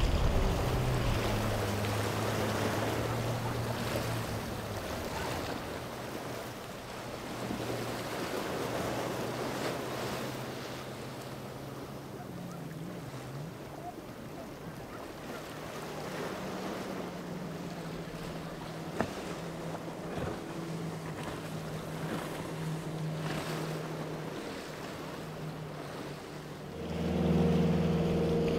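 Motorboat engines running at speed, including a single Yamaha 70 outboard on a Robalo center console, over the rush of hull spray and wind on the microphone. Near the end a larger boat's engines come in louder and deeper.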